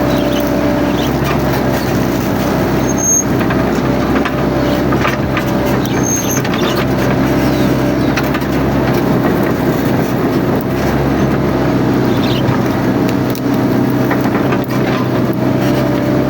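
Mini excavator's diesel engine running steadily under work, with scattered knocks and cracks through it.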